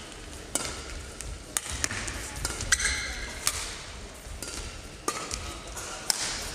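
Badminton rally: rackets strike the shuttlecock with sharp cracks about once a second, and court shoes squeak on the sports floor mat around the middle.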